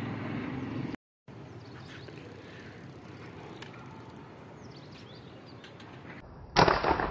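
Quiet outdoor background with a few faint bird chirps, broken by a brief drop to silence about a second in. Near the end comes a sudden loud noise that fades away over about a second.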